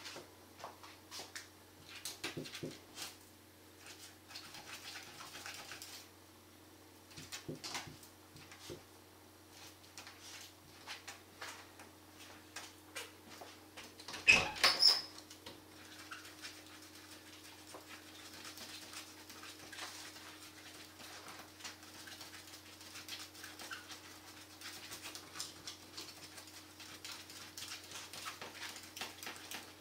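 Ferret scratching and scrabbling with its claws at the bottom of a closed door: a scattered run of small scrapes and clicks, with one brief, much louder sound about halfway through.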